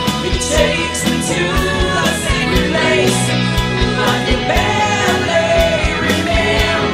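Rock song with drums, guitar and bass under a sung vocal line.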